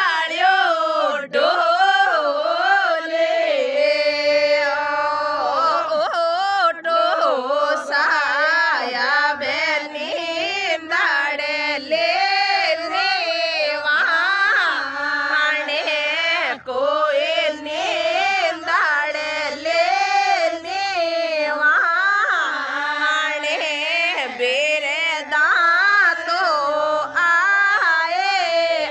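Women singing a Rajasthani wedding folk song (vivah geet) in a steady, continuous melody.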